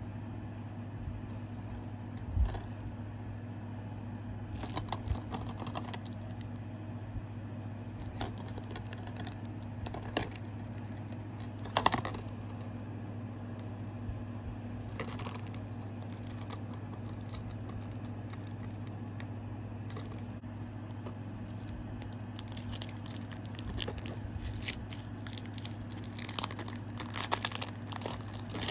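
Plastic packaging crinkling and tearing, with scattered clicks and knocks, as a DVD is unwrapped and handled. Two louder knocks come about 2 and 12 seconds in, and the crinkling gets busier near the end, over a steady low hum.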